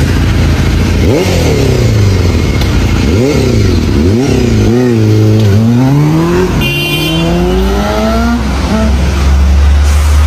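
Honda Fireblade inline-four engine revved in several sharp throttle blips, then pulling away and rising in pitch twice as it accelerates through a gear change.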